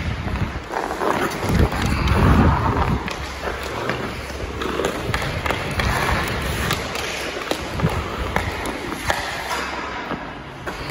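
Ice hockey skate blades scraping and carving across rink ice, with scattered sharp clicks of a stick handling and tapping pucks.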